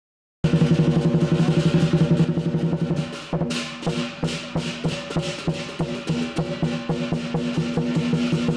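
Lion dance percussion: a Chinese drum beaten in rapid rolls with clashing cymbals and a ringing gong, starting abruptly about half a second in.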